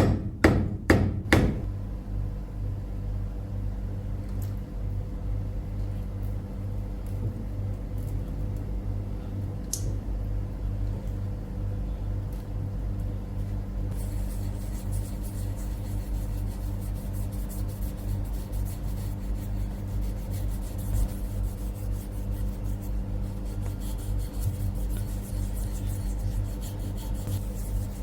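A few quick, evenly spaced metal hammer strikes that stop about a second in, then steady rubbing over a low mechanical hum. About halfway through, the rubbing turns hissier, like sanding or abrasive work on the hammer.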